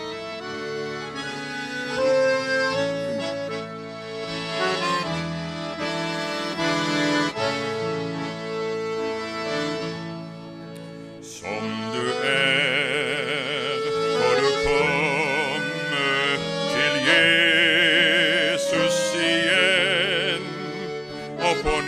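Accordion playing the introduction to a Norwegian gospel song, a melody of held notes over a steady bass. From about halfway through, a man's solo voice with strong vibrato comes in over the accordion and is louder than it.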